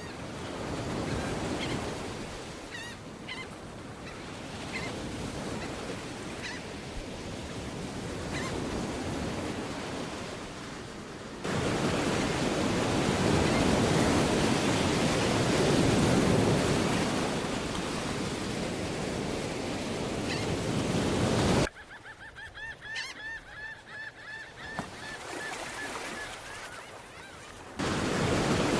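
Added sound-effect track of sea surf washing on a shore, with bird calls. About two-thirds of the way through, the surf cuts out abruptly and a bird calls repeatedly for several seconds. Then the surf comes back.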